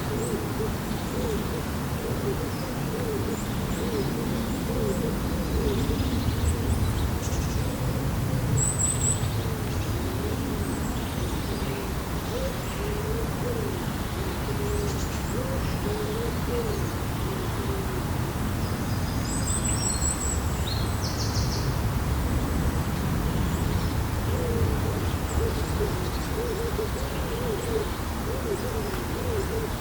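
Birds calling with many short, low, hoot-like calls that repeat and overlap throughout, over a steady low rumble. Twice a small bird adds a brief high chirp.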